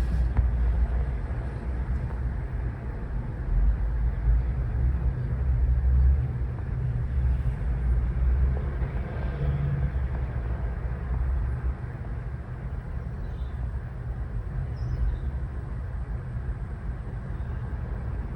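Steady low rumble with a faint hiss of background noise, easing a little about two-thirds of the way through.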